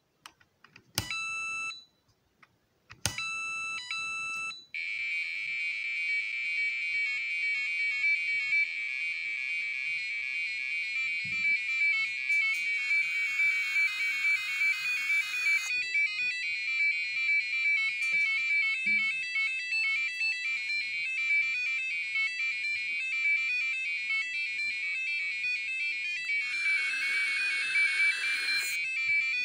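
Piezo buzzer of an Arduino-driven electronic Japanese billiard game: a few short electronic beeps, then from about five seconds in a continuous fast ringtone-like melody of rapid beeping notes.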